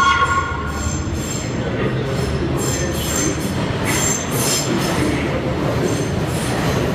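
Subway train rolling in on the curved station track, its steel wheels squealing against the rails in high shrill bursts over a steady rumble.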